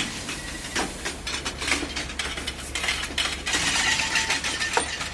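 Narrow-gauge railway passenger cars rolling past close by, their wheels clicking and clanking irregularly over the rail joints with metallic rattles.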